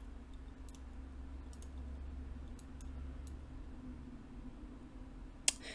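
Computer mouse clicking a few times, faint and irregular, with one sharper click near the end, over a low steady hum.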